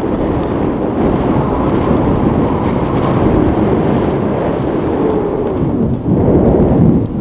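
Wind buffeting a handheld camera's microphone in the airflow of a tandem paraglider flight: a loud, steady, low rumble.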